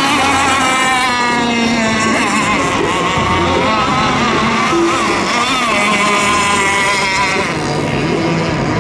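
Several radio-controlled racing boats running flat out together, their high-pitched motors overlapping and wavering up and down in pitch as they race.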